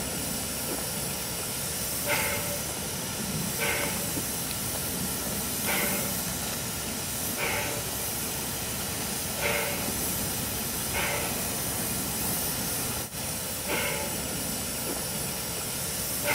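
A 1927 ALCO 2-6-2 tank steam locomotive standing at rest with steam hissing steadily, and a short puff recurring every one and a half to two seconds.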